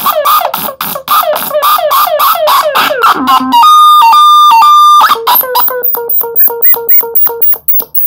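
Homemade DIY oscillator synthesizer putting out rapid falling chirps, about five a second. About three and a half seconds in it switches to a steady held tone that steps between a few pitches. From about five seconds on it plays a fast stuttering pattern of short beeps.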